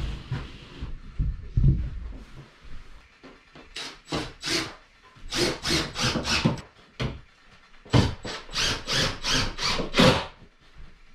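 Runs of short, rapid rasping strokes on an OSB worktop board, in two bursts of scraping, after a few dull knocks on the board in the first two seconds.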